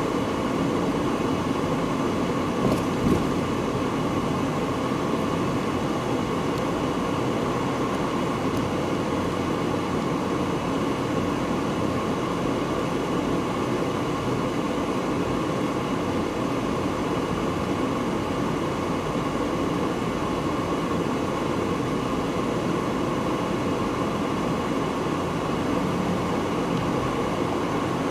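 Steady hum and hiss of a car's engine and road noise heard inside the cabin, with two faint clicks about three seconds in.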